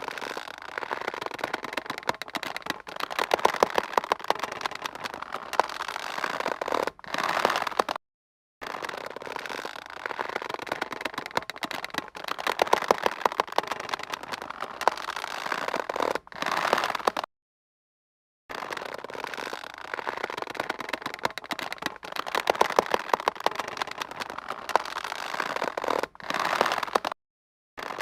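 A taut rope creaking and squeaking under strain, a dense crackling creak in three passages of about eight seconds each. Each passage swells louder near its end and breaks off into a short silence.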